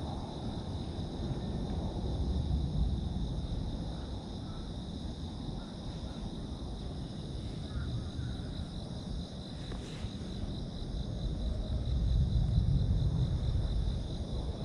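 Outdoor park ambience: a steady high insect chorus over a low rumble that swells twice, with a single sharp click about ten seconds in.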